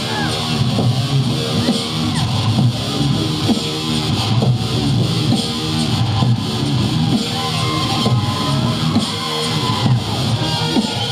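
A voice imitating an electric guitar solo, bending notes over a repeating low bass pattern.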